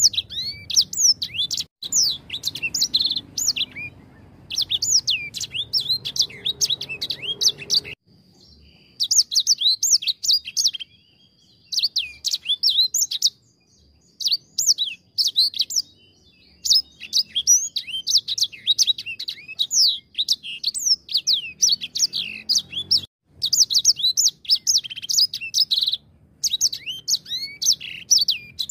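Edel sanger songbird singing a fast, high twittering song of rapid chirps, delivered in long phrases broken by brief pauses.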